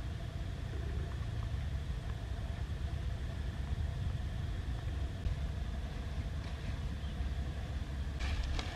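A steady low outdoor rumble with faint steady tones above it. Near the end come a few quick crisp snaps and rustles as water morning glory stems are cut with a knife.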